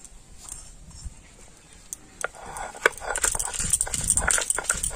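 Stone pestle (nora) rubbed over a flat grinding stone (sil), crushing pointed gourd seeds into a paste. It starts quietly, with a few clacks about two seconds in, then becomes a loud, dense scraping of stone on stone with many short strokes.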